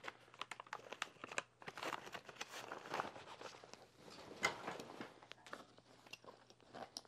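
Gear being handled and unpacked from a backpack: irregular soft rustling and crinkling with small taps.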